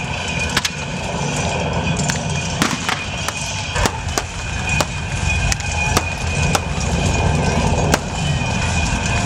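Staged battle soundtrack: sharp cracks and clashes at irregular intervals, roughly one or two a second, over a steady low rumble and music.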